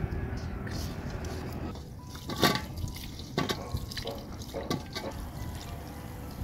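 Water splashing and dripping in a metal basin as broccoli florets are rinsed by hand under water poured from a plastic jug. From about two seconds in come several short sharp splashes.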